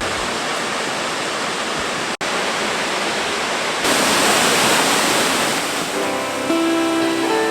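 Steady rushing roar of a waterfall, broken by a brief cut about two seconds in and louder from about four seconds in. Music fades back in over it near the end.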